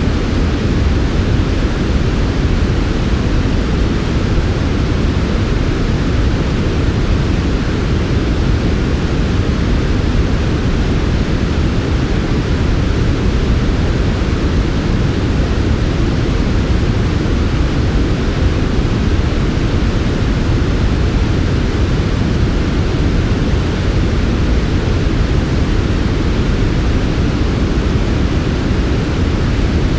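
Steady synthetic white noise for sleep, smooth and unchanging, with most of its weight in the low end and a softened top.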